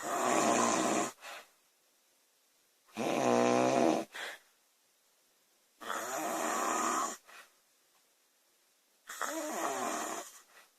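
A woman snoring loudly: four snores about three seconds apart, each lasting about a second and trailed by a brief, quieter sound. The second snore carries a pitched, buzzing vibration.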